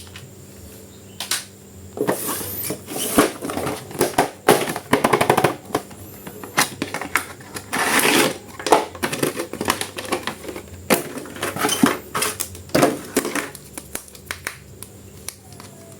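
Irregular clicks and crinkling of plastic as a boxed toy action figure is handled and unpacked.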